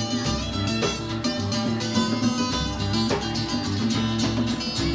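Rock band playing an instrumental stretch with no vocals: guitar over a held low bass line.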